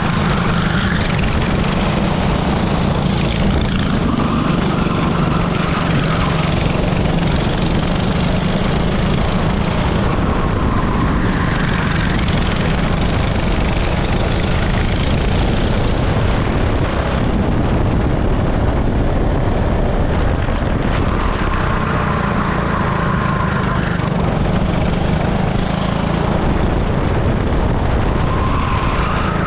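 An 18 hp super kart's engine running at racing speed, heard from onboard, its pitch rising and falling with the throttle through the lap.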